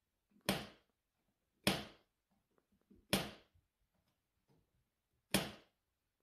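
A wall light switch snapping four times at uneven intervals as a cat's paw flips it, each a sharp click with a short echo from a small room.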